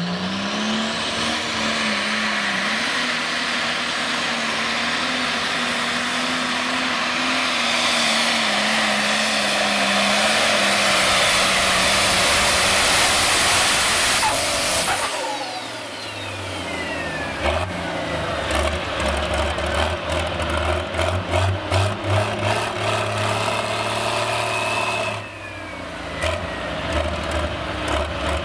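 Open-class pulling tractor engine winding up at launch and running at full throttle as it drags the sled for about fourteen seconds. The throttle is then cut suddenly and a high whine falls away over a couple of seconds, and the engine carries on at lower, uneven revs with throttle blips.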